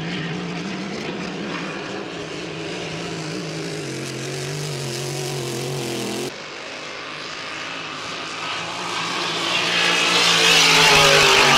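Grand Prix-class racing hydroplane's engine running at speed on a time-trial pass, a steady drone that eases slightly a few seconds in. It cuts off suddenly, then swells louder with a rushing hiss as the boat passes close, its pitch falling near the end.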